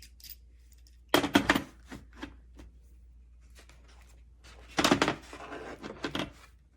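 Tools being handled in a plastic tool kit case: two bursts of clattering and clicking, about a second in and again near the five-second mark, with small taps between.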